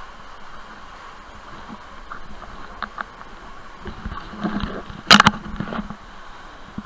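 Sea water sloshing and lapping among rocks close to the camera. A few small clicks come near the middle, and one sharp knock or splash about five seconds in is the loudest sound.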